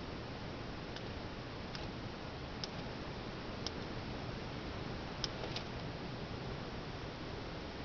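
Steady hiss with about six faint, sharp ticks at irregular intervals.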